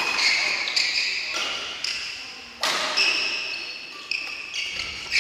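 Badminton rallies: rackets striking shuttlecocks in sharp pops every half second to a second, echoing in a large sports hall. Shoes squeak high on the wooden court floor.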